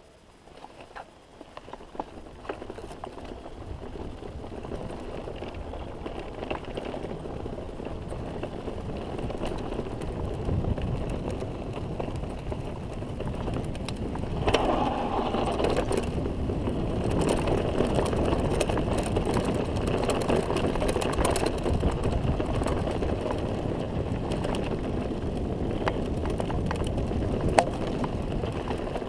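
Mountain bike descending a dirt trail: a steady rush of tyres rolling over dirt, growing louder as speed builds, most sharply about halfway. Scattered clicks and rattles come from the bike over bumps, with one sharp knock near the end.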